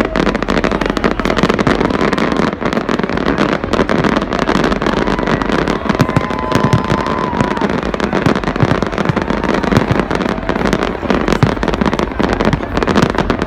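Fireworks going off in rapid succession: a dense, continuous run of bangs and crackles.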